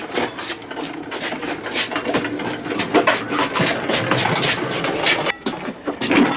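Rapid, irregular metallic clicks, clinks and clanks as a heavy cast-iron lathe is manhandled and shifted.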